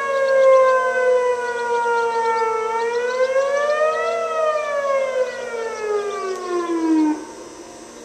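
Outdoor tornado warning siren wailing. Its pitch falls, rises briefly, then slides down and winds off about seven seconds in.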